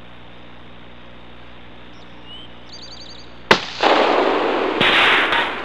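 A single shot from a Savage Model 12 bolt-action rifle in .223 Remington, a sharp crack about three and a half seconds in. About two seconds of loud noise follow the crack.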